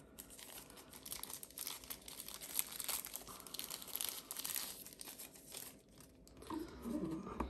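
Plastic packaging crinkling and rustling as it is handled, in a busy run of irregular crackles.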